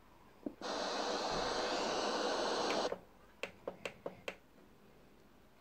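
Soundmaster Highline TR65 clock radio hissing with FM static on an empty frequency at the bottom of the band. The hiss begins with a click and runs for about two seconds, then cuts off suddenly. A quick run of about six clicks follows as the tuning buttons are pressed.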